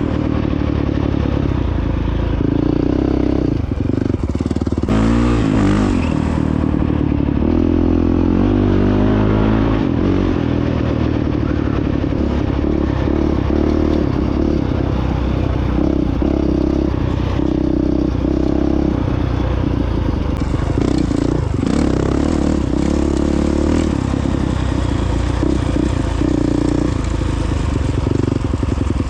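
Honda CRF450X dirt bike's single-cylinder four-stroke engine running under way, its pitch rising and falling as the throttle opens and closes, with clatter from the bike riding over rough ground.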